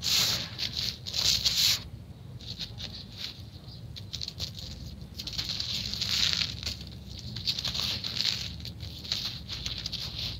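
Hands crumbling, rubbing and breaking up lumps of gritty sand-cement mix on a woven plastic sack: irregular gritty crunching and rustling of grains in bursts, loudest in the first two seconds.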